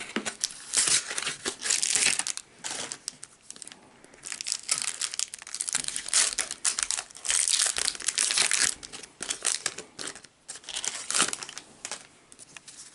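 Foil and plastic packaging of a Pokémon trading-card booster pack crinkling and tearing as it is opened by hand. The crinkling comes in bursts, with quieter gaps about three seconds in and about ten seconds in.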